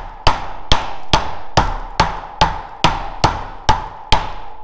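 Steady hammer blows on a wooden plank held over an engine part to drive it into place, about two a second. Each blow is a sharp knock followed by a brief ring.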